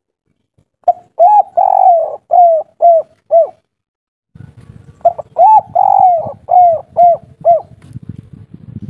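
Spotted dove (tekukur/derkuku) cooing its song twice. Each phrase runs about two and a half seconds: two short notes, one long note, then three short clipped notes at the end, the 'kuk 3' song type.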